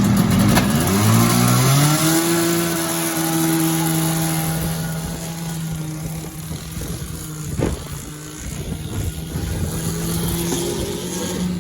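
Snowmobile engine catching after being sunk in a pond, rising in pitch over about two seconds, then running at a steady fast idle. A single sharp click comes between seven and eight seconds in.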